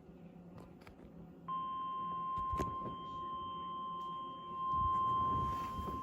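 NOAA Weather Radio warning alarm tone: a single steady beep that switches on abruptly about a second and a half in and holds, the attention signal that announces a warning broadcast. A few soft knocks sound in the background.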